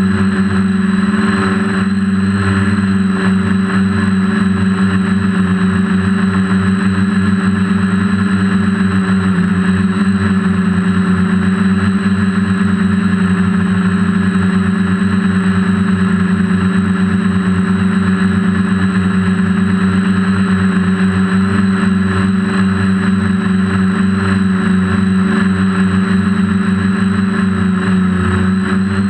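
DJI F450 quadcopter's brushless motors and propellers humming steadily in flight, heard from the GoPro on its frame, with a thin high whine over the hum.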